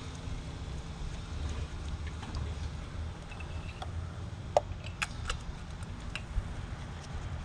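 A few short, sharp metallic clicks and taps about halfway through, from hand tools working at the spark plugs in the engine bay, over a steady low wind rumble on the microphone.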